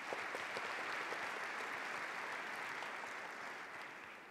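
Audience applauding, a steady patter of many hands clapping that fades away near the end.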